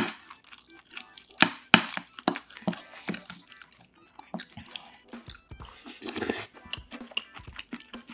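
Close-up eating sounds: a spoon clicking and scraping against a bowl as stew-soaked rice is stirred, then chewing with wet mouth sounds and scattered sharp clicks of utensils on the dishes.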